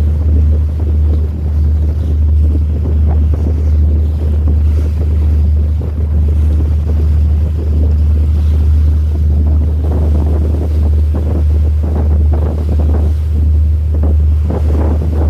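Wind buffeting the microphone over a steady deep rumble, the gusts growing choppier in the last few seconds.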